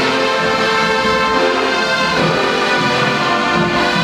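Marching band's brass section playing sustained chords, with a change of chord about two seconds in.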